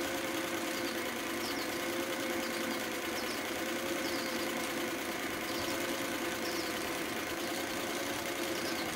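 Singer 319W zigzag sewing machine running steadily at speed, its motor humming as it stitches a cam-driven decorative pattern.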